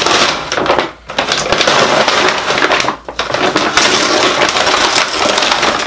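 Brown paper takeout bag being crinkled and torn open, a dense, loud crackling rustle of stiff paper with two brief pauses about one and three seconds in.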